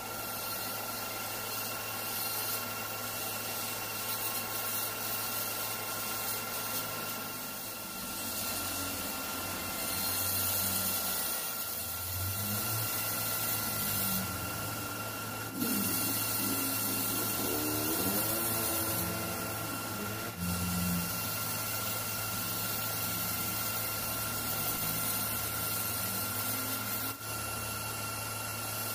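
Metal lathe running with a steady hum and whine while a carbide-insert tool takes a facing cut across the end of an aluminium piston, with a hiss of cutting as chips fly off.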